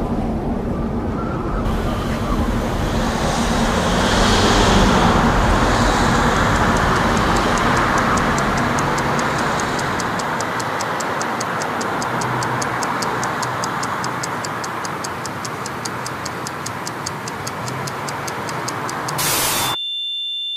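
Street and traffic noise with wind rumble on a GoPro's microphone, a steady noisy wash. From about halfway a fast, even ticking runs over it. Shortly before the end it cuts off suddenly to a steady high electronic tone.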